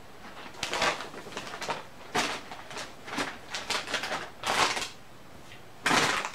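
Foil snack-chip bags crinkling and rustling as they are handled, in a run of irregular crackling bursts.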